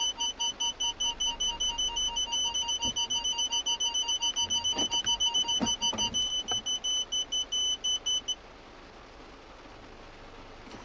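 Car parking sensors beeping rapidly, about six beeps a second, heard as two overlapping beep sequences at different pitches: the car's original parking-sensor buzzer and the Bosion BX-440 head unit both sounding the warning at once. The lower-pitched sequence stops about six seconds in, the higher one about eight seconds in, with a few faint clicks in between.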